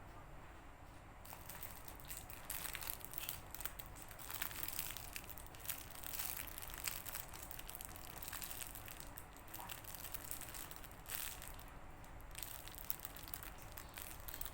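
Squishy foam toys being handled and squeezed: a dense, irregular soft crackling and crinkling that starts about a second in.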